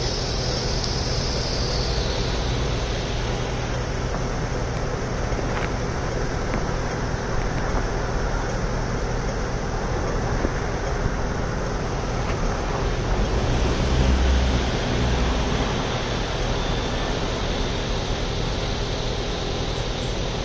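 Steady city street traffic noise with a low engine rumble underneath, swelling briefly about 14 seconds in as a vehicle passes.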